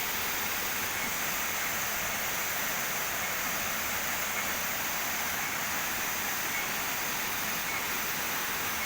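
A waterfall rushing steadily, an even hiss of falling water.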